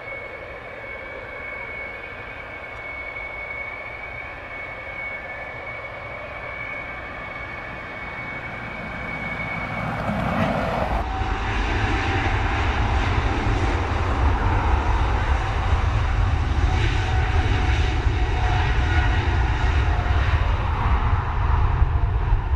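Boeing 777 freighter's GE90 turbofan engines at low taxi power: a steady high whine over a low hum. About halfway through it changes abruptly to a much louder, deeper rumble of the engines at higher thrust as the jet rolls along the runway.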